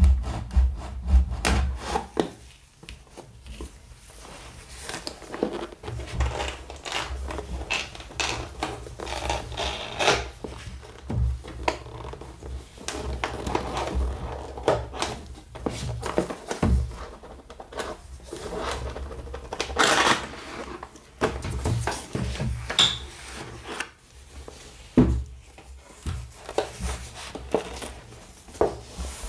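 A cardboard box being cut open and handled. A box cutter makes a quick run of fine clicks and scrapes as it slices the seal in the first couple of seconds. After that come scattered knocks, rubbing and sliding of cardboard as the box is turned over and its lid is opened.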